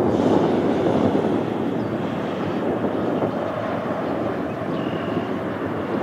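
Jet airliner's engines at takeoff power during the takeoff roll and lift-off, a dense steady rumble that eases slightly toward the end.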